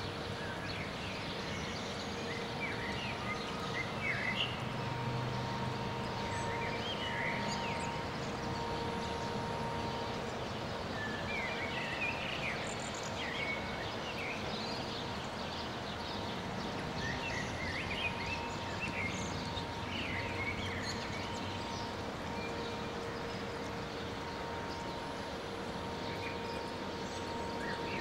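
Small birds chirping in short clusters every few seconds over a steady outdoor background noise with a faint constant hum.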